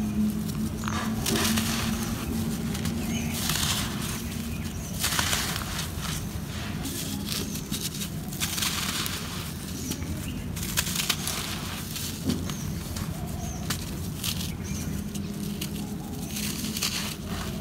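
Dry red dirt clods being crumbled and squeezed by hand, giving a crisp crunch and a grainy trickle of falling soil. It comes in repeated bursts a second or so long.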